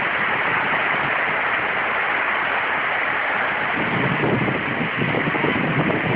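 Heavy rain falling, a steady hiss. A lower, uneven rumble joins about four seconds in.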